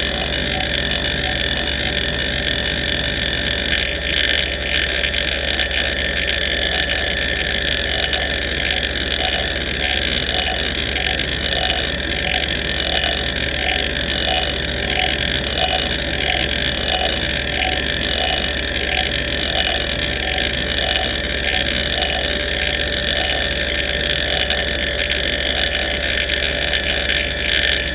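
NEC D3724 426 MB single-platter hard drive running hdmotion, its head actuator seeking back and forth in a sweeping pattern: a continuous buzzing seek chatter that pulses in a regular rhythm, over the steady whine of the spinning platter.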